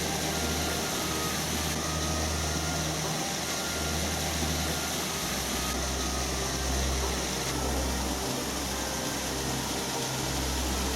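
Steady rush of a waterfall, an even unbroken roar of falling water with a low rumble underneath that rises and falls.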